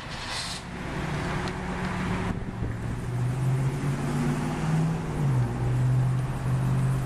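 The trunk lid of a 2008 Cadillac CTS opening, with a short hiss near the start, over a steady low vehicle engine hum whose pitch drops slightly about five seconds in.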